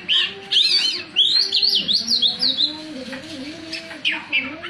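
Oriental magpie-robin (kacer) singing: a rapid run of varied whistled notes that slide up and down, busiest in the first two and a half seconds. A lower, wavering tone runs beneath the song from about two seconds in.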